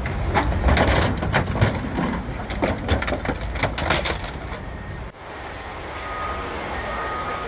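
The 1997 Chevrolet Tahoe's body being crushed and torn apart by scrapyard machinery: crunching with many sharp cracks and bangs for about five seconds. It breaks off suddenly, leaving steady machine running with a repeating two-pitch electronic beeping.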